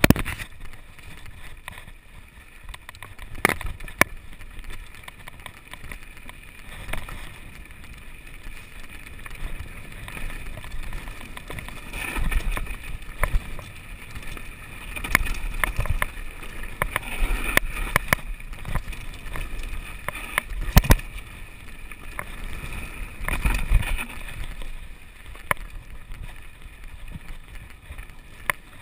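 Mountain bike riding down a rocky trail, heard from a camera mounted on the bike: the bike rattles, with many sharp knocks over stones and a low rumble of wind on the microphone that swells at times.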